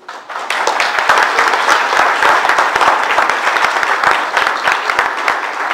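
Audience applauding, breaking out suddenly and reaching full strength within about half a second.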